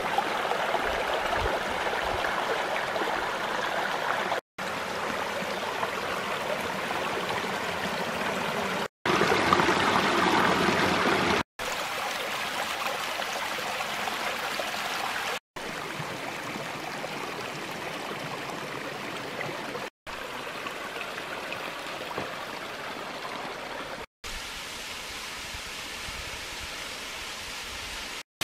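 Mountain stream running over mossy rocks and small cascades, a steady rush of water. It is heard in several segments, each cut off by a brief silent gap every few seconds; the rush is loudest for a couple of seconds about nine seconds in.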